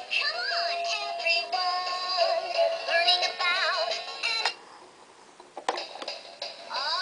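A battery-powered toddler's toy train playing an electronic children's song with a synthesized singing voice. The tune breaks off about halfway through, a single click follows, and the song starts up again just before the end.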